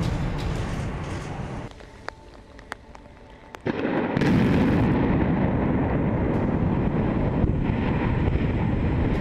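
Explosive demolition of a concrete motorway viaduct. A deep rumble fades, then a few sharp cracks are heard. Nearly four seconds in, the charges on the concrete piers go off in a sudden loud blast, followed by a sustained heavy rumble as the piers come down.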